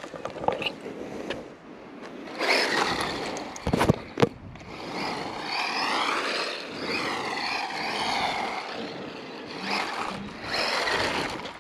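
Remote-control car driving on concrete: its electric motor whine and tyre noise swell and fade, rising and falling in pitch as it speeds up and slows. There are a couple of sharp knocks about four seconds in.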